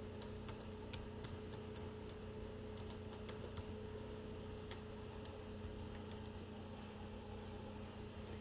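Typing on a computer keyboard: irregular light key clicks, more of them in the first half, over a faint steady hum.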